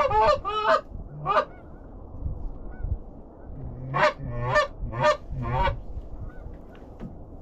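Canada goose honks: a quick cluster of honks, a single honk just over a second in, then four more about half a second apart starting around four seconds in.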